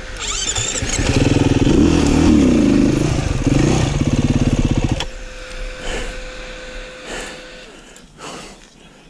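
Beta RR 500 four-stroke single-cylinder dirt bike engine revving up and down unevenly on the throttle, then cutting out abruptly about five seconds in as the bike stalls.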